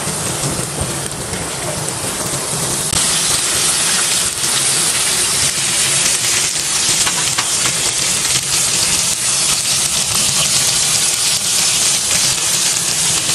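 Egg-and-flour-coated chicken strips deep-frying in hot oil: a steady sizzling hiss with small crackles, growing louder about three seconds in.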